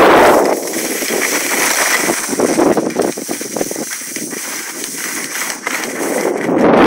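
Wind rushing over a phone's microphone while skiing. It drops away about half a second in, leaving a softer crackling hiss of skis on snow, and returns just before the end.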